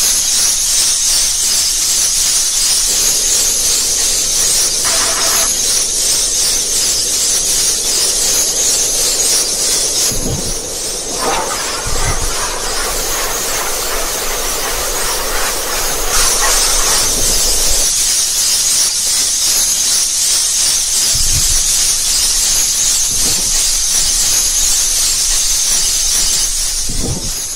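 Loud, steady high-pitched hiss, with a few dull low thumps spread through it and a stretch of extra mid-pitched noise near the middle.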